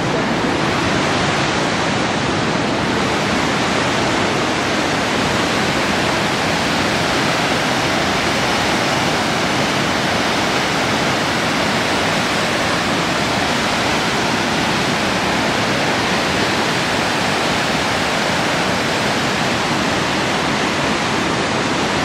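Gullfoss, a large two-tiered waterfall, pouring steadily: a loud, even rush of falling water that does not let up.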